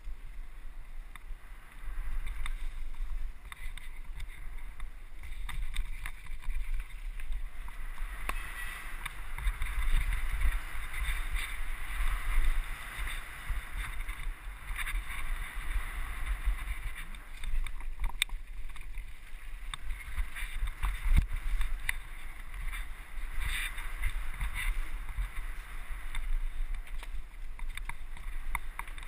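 Mountain-bike ride down a dirt forest singletrack: wind rumbling on the microphone and tyres hissing over the trail, louder from about eight seconds in, with a few sharp knocks from bumps.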